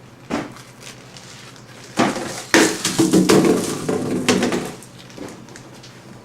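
Hard objects knocking and clattering: a sharp knock just after the start, another about two seconds in, then a run of clatter through the middle that dies away.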